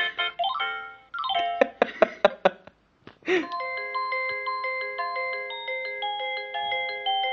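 Electronic musical doorbell chime playing melodies in glockenspiel-like bell tones. A fast run of notes finishes, and after a short pause and a brief noise a new, slower tune begins.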